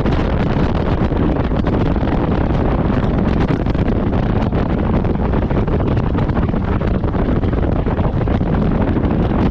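Steady, loud wind buffeting the microphone, a dense rumble heaviest in the low end.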